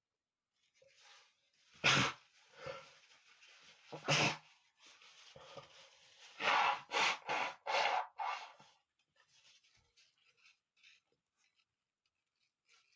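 A man sneezing while sick with a cold: breathy inhales, then two loud sneezes about two seconds apart, followed by a run of four shorter, quicker bursts close together, trailing off into faint breathing.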